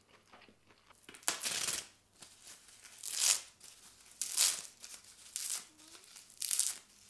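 A dry sheet of nori seaweed being torn and crumpled by hand: about six crisp, crackling tears, roughly one a second, starting about a second in.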